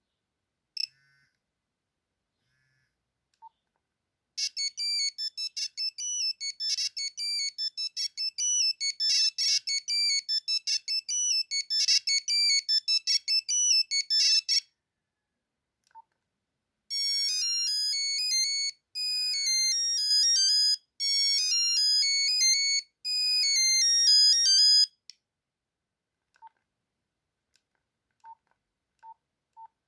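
Nokia 3310 monophonic ringtones beeping out tunes. A fast run of short notes plays for about ten seconds. After a pause a second tune plays in four longer phrases. Single short beeps fall in the gaps.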